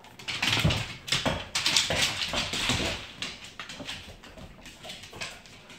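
Dogs' claws clattering and skittering on a hard floor as a black Labrador and a Saint Bernard puppy scramble after a thrown toy. The clatter is loudest in the first three seconds and then eases off.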